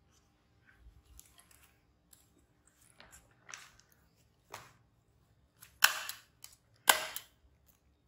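Desk stapler being squeezed shut on a disposable diaper, giving short, sharp snaps: four in all, about a second apart, the last two much the loudest.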